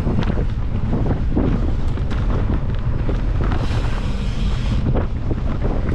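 Wind buffeting the microphone of a camera on a mountain bike riding dirt singletrack, over tyre noise and frequent short rattles and knocks from the bike on the bumpy trail. A brief hiss comes in a little past halfway.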